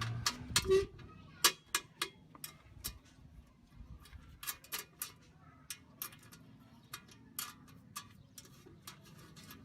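Irregular sharp clicks and light knocks, about two a second and loudest in the first two seconds, from hand work on the parts of a grill made from a metal tank.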